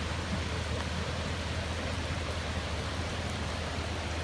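Steady rushing water noise with a constant low hum underneath.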